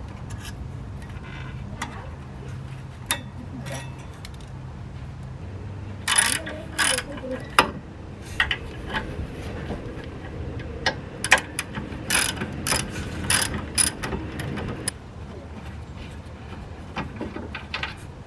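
Hand ratchet wrench clicking in short bursts, with metal clinks, while bolts on the brake assembly are worked. The clicking is sparse at first and busiest in the middle, then dies down near the end.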